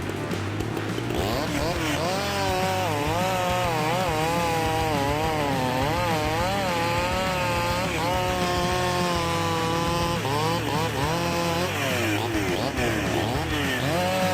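Chainsaw engine running hard while cutting, its pitch wavering up and down as the load on the chain changes, with a few quick revs about ten seconds in.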